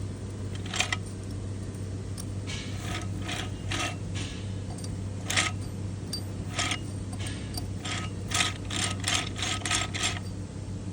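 Short, sharp metallic clicks from hand-tool work on a transfer case, scattered at first, then coming quickly, about five a second, near the end, over a steady low hum.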